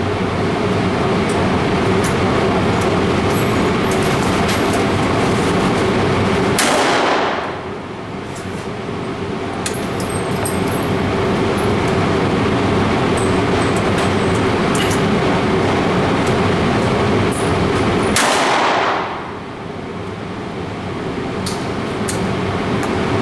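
Two shots from an H&R Topper 12-gauge single-shot shotgun, about eleven seconds apart, each with a long echoing tail in an indoor range. A steady, loud rushing noise runs underneath.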